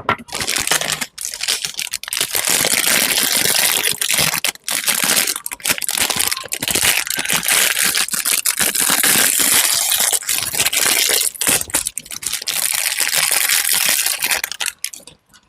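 Close-miked food being crushed and mixed, a dense, continuous crackling and crunching broken by a few short gaps.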